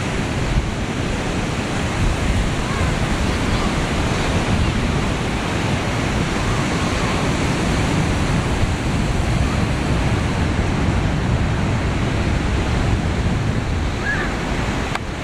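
Ocean surf breaking on a beach, a steady rush of waves, with wind buffeting the microphone.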